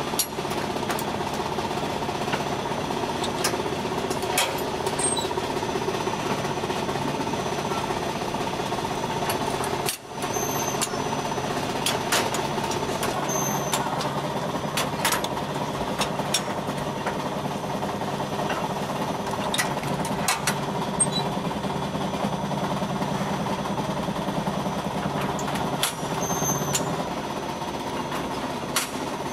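Automatic mold-conveyor machine for small filled breads running: a steady mechanical hum with irregular metallic clicks and clanks every second or so as its cast-iron molds advance and its parts move.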